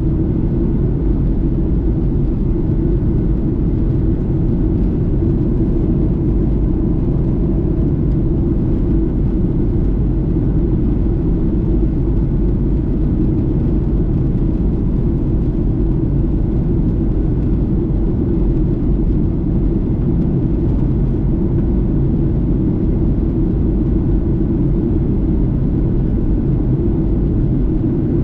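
Steady low cabin roar of a Boeing 737-800 airliner in flight, its engines and airflow making an even, unbroken rumble with a faint steady hum above it.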